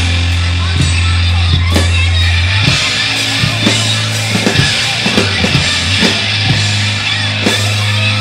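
Rock band playing: drum kit hits over a held low bass note that changes pitch about two and a half seconds in, with guitar and effects filling the upper range.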